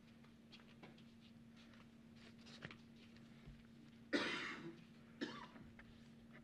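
Two coughs, a longer one about four seconds in and a shorter one about a second later, over a faint steady hum.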